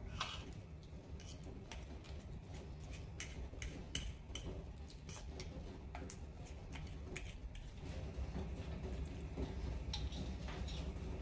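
Metal fork clinking and scraping against a ceramic plate while mashing a ripe banana: a run of irregular clicks that stops about eight seconds in. A steady low hum runs underneath and gets louder near the end.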